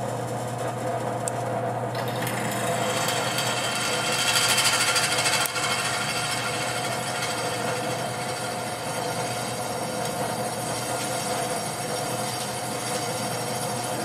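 Benchtop drill press running steadily, its bit fed down slowly and cutting into a piece of metal. The motor hum holds steady while the cutting noise comes in about two seconds in and is loudest around the middle.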